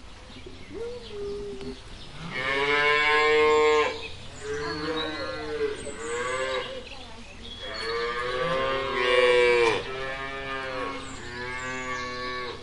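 Cattle mooing: a run of long, drawn-out moos, several overlapping. The loudest come about two seconds in and again about eight seconds in.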